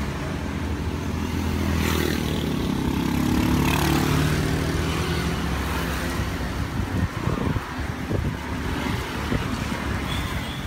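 A passing motor vehicle's engine runs over street traffic, rising in pitch and then fading. From about seven seconds in there is a run of quick dull knocks: a pestle grinding and pounding chili sauce for rujak in a mortar.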